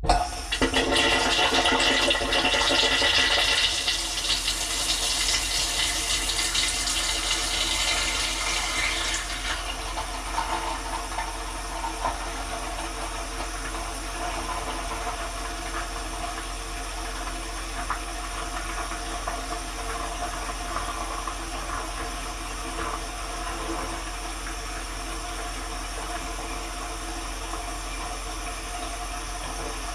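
Dishwasher running inside its tub: water starts suddenly and sprays and rushes, loudest for the first few seconds with a hiss that eases off after about ten seconds, leaving a steady hum of the pump under running water.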